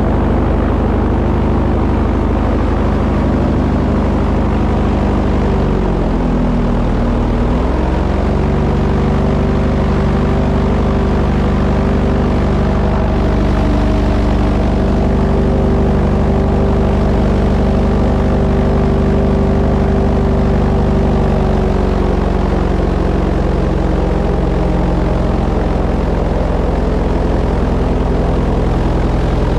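Engine running steadily at a constant speed, easing down in pitch about six seconds in and picking back up about two seconds later.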